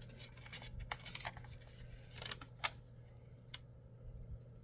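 Small plastic lipstick cases being handled: scattered light rustles and clicks, with one sharp click a little past halfway.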